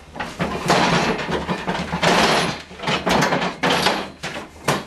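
Scraping, knocking and rustling of a table and chairs being shifted as two people settle in behind the table, in a run of uneven noisy scrapes and bumps.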